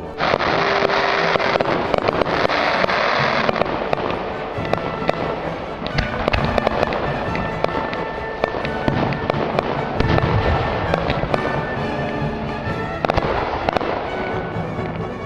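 Fireworks going off: a dense crackling that starts suddenly and lasts about three seconds, then many sharp bangs and pops, with deep booms about six and ten seconds in.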